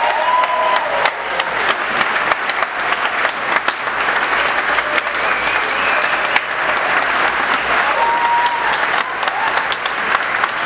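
Audience applauding steadily, with a few cheers rising above the clapping.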